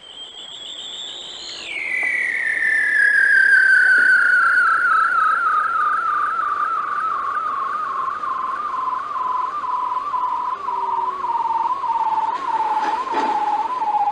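A single long whistle-like tone with a quick, regular wobble. It drops sharply in pitch about a second and a half in, then slides slowly lower without a break. There is one short click near the end.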